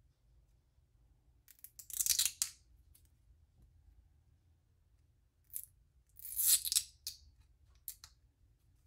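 Small plastic super glue bottle handled between the fingers: two short rasping scrapes about four seconds apart, with a couple of light clicks.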